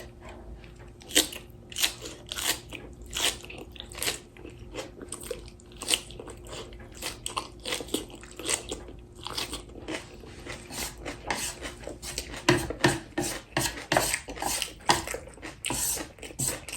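A person biting and chewing crisp fresh cabbage kimchi, with irregular crunches; the crunching gets louder and denser about twelve seconds in.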